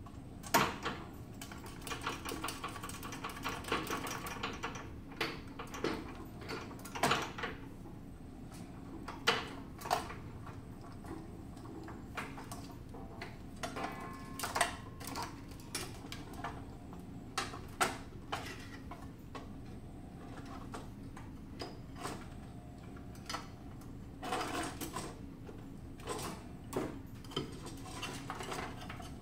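Irregular clicks, knocks and small rattles of a sheet-metal power-supply enclosure being handled and fitted back onto a resuscitator's stand, in scattered clusters over a steady low hum.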